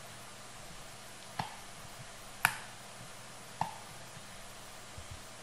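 Computer mouse buttons clicking three times, about a second apart, over a faint steady hiss, with two soft low knocks near the end.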